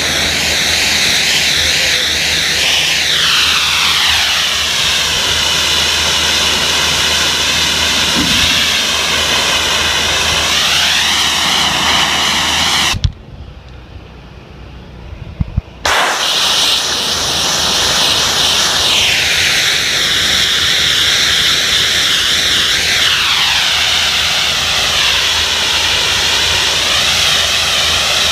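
Gum-removal machine blasting a loud, hissing pressurised jet, with a whine that slides down and back up in pitch several times. It cuts out for about three seconds partway through, leaving a low hum, then starts again.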